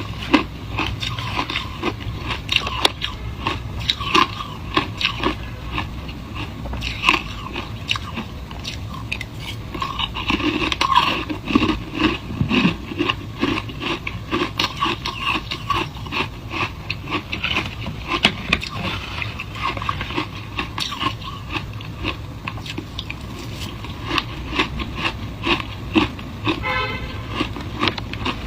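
Shaved ice being bitten and chewed close to the microphone: a dense, irregular run of crisp crunches.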